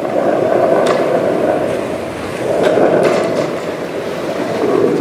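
A foley percussion effect imitating the sea: a rushing noise that swells and ebbs like waves, rising about a second and a half apart, with a few sharp clicks around the middle.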